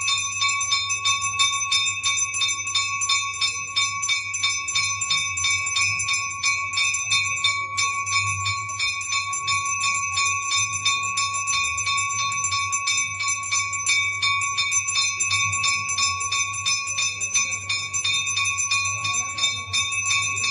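Metal temple bell rung rapidly and without a break during the puja, several even strokes a second keeping up a steady ringing tone.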